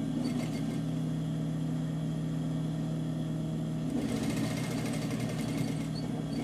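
Sewing machine with a steady motor hum. About four seconds in it starts stitching, with a fast, even rattle.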